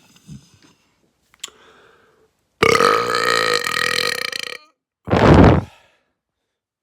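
A person belching twice: a long, loud burp of about two seconds, then a shorter one about half a second later.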